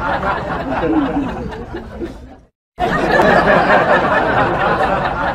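A crowd of voices chattering and laughing. It fades out about two and a half seconds in, breaks off into a short silence, then starts again just as loud.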